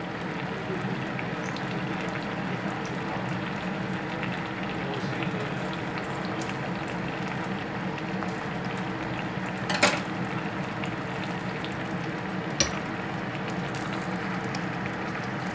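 Fish stew bubbling steadily at a boil in a clay pot. Two sharp clicks, one about ten seconds in and one near the end.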